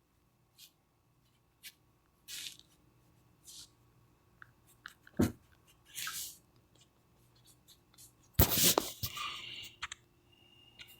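Scattered clicks and short rustling noises, with a sharp click about five seconds in and a louder rustling burst about eight and a half seconds in, over a faint steady hum.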